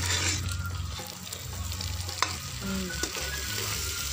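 Chicken pieces sizzling and frying in curry paste in a pot while a metal ladle stirs them, with one sharp knock of the ladle about two seconds in.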